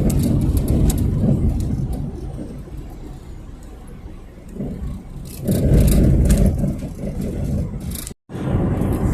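Car on the move, its engine and road rumble swelling twice as it accelerates. The sound cuts out for a moment near the end.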